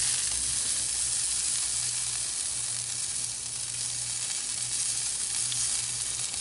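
Vegetable skewers sizzling steadily on the hot cast iron grate of a charcoal grill, cooking fast over the coals, with a low hum underneath.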